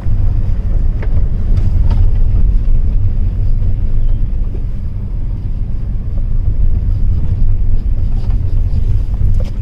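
Low, steady road and engine rumble inside a moving Tata Tiago hatchback, with a few faint sharp rattles now and then. This is the car's mystery rattle, which the owner says dealer technicians could not trace.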